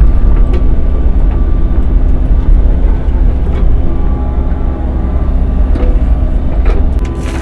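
Excavator's diesel engine and hydraulics running under load, a steady low rumble with a thin whine above it, and a few sharp knocks from the bucket working. A short rush of noise comes near the end.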